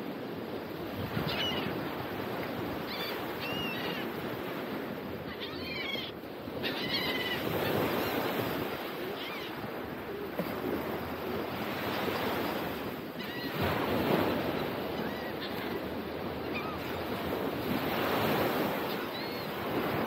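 Ocean surf washing onto the beach, swelling and easing. Short high bird calls come through now and then, several in the first seven seconds and once more near the end.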